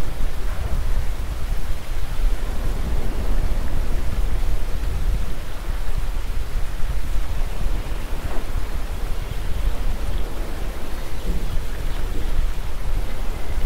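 Wind buffeting the microphone: a steady, loud low rumble with a hiss above it.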